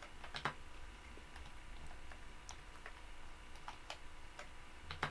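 Computer keyboard keystrokes: a few sparse, irregularly spaced key clicks, the sharpest near the end, over a faint low hum.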